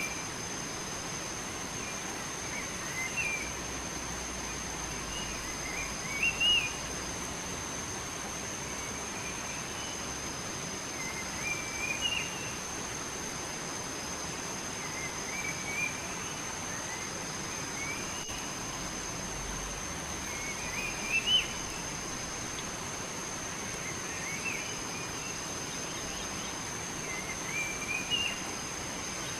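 A songbird repeating a short chirping phrase about every three seconds, over a steady background hiss and a thin, steady high-pitched whine.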